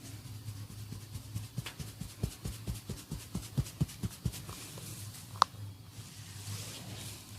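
Hands patting and tapping on a head during a head massage: a run of soft, low thumps at about four a second for some three seconds, then one sharp click. A steady low hum runs underneath.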